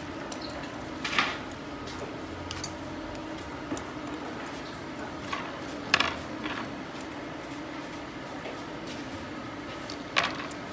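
Metal grooming tools clinking: a few sharp clinks, the loudest about a second in, about six seconds in and near the end, with fainter ones between, over a steady low hum.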